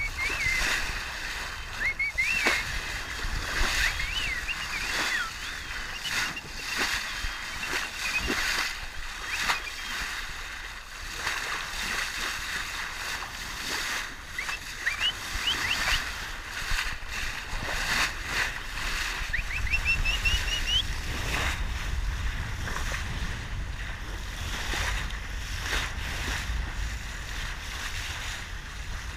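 Water sloshing and splashing, with many short splashy clicks and several short squeaky whistles that rise and fall in pitch, from dolphins swimming close alongside; a run of quick rising whistles comes about twenty seconds in.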